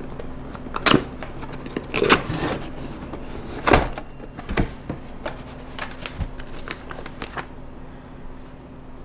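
Cardboard box being handled as its tape is taken off: a run of short rips, scrapes and knocks, the loudest knock a little under four seconds in, over a steady low hum.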